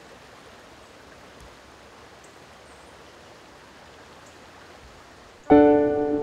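Steady rush of a small stream flowing over rocks. About five and a half seconds in, a sustained musical chord comes in suddenly and louder, then rings on as it slowly fades.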